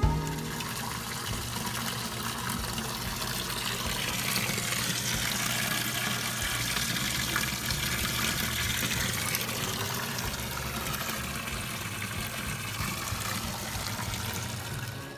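Water running and pouring steadily.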